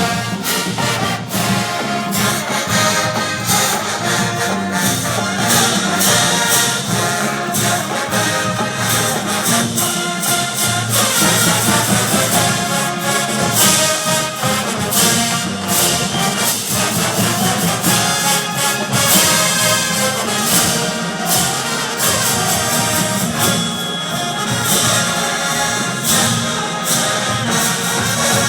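Marching band playing loudly: brass section carrying the tune over a steady run of drum and cymbal hits.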